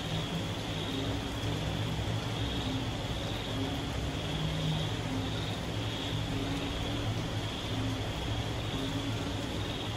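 Moderate rain falling steadily, with a high chorus of night creatures swelling and fading about once a second and short low frog calls recurring every second or two over a steady low rumble.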